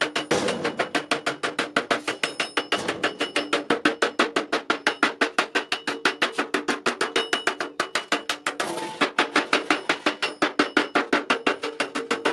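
Rapid, steady hammer blows on metal at an anvil, about five or six a second, each with a bright metallic ring. The hammering pauses briefly twice.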